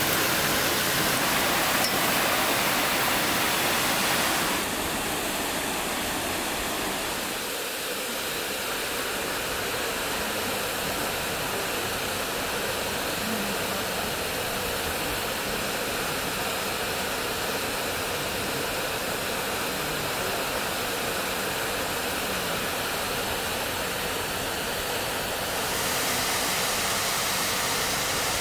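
Steady rush of a mountain stream and waterfall. In the first few seconds a hand splashes in the water. The level drops abruptly about four and a half seconds in and rises again near the end.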